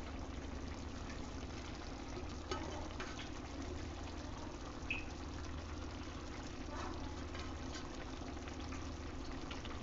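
Vada curry simmering gently in a pan, a soft steady bubbling over a constant low hum, with a few faint soft clicks.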